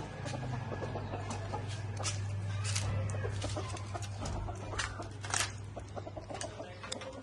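Silkie chickens clucking: a scattering of short sharp calls, the loudest about five seconds in, over a low steady hum that fades out about halfway.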